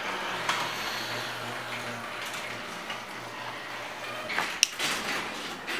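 Electric garage door opener running, a steady motor hum with the rumble of the door moving, and a few sharp clicks and knocks near the end. The door then fails to close, which the owner puts down to a faulty safety sensor.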